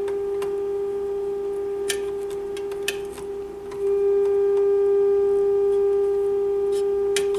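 Steady test tone from the signal generator's modulation, played through the loudspeaker of a 1936 Philco 116x radio during IF alignment. It sags slightly, then jumps louder about four seconds in as the second IF transformer is tuned toward peak. A few faint clicks come from the alignment tool.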